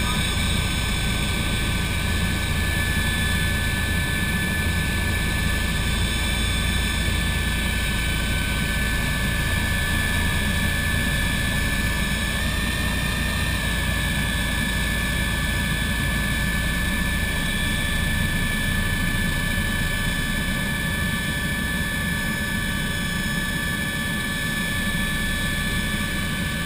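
Cabin noise inside a Bo-105 helicopter in flight: its twin turbine engines and rotor running steadily, a low rumble under steady high whining tones. About halfway through, the whine briefly shifts in pitch for about a second.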